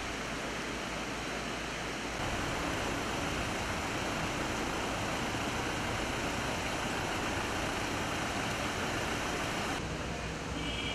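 Steady rushing noise of heavy rain and running water, with no distinct events; it gets a little louder about two seconds in and eases slightly near the end.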